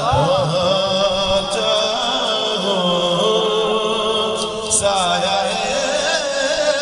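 A man singing a naat, an Urdu devotional poem, solo and unaccompanied, in long, wavering held notes.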